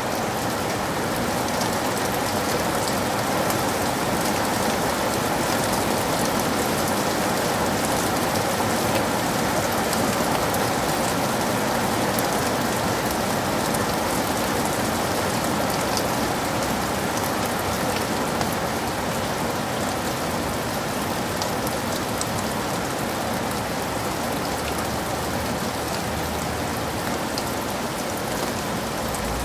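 Heavy rain falling steadily, a dense hiss with the fine patter of drops hitting surfaces.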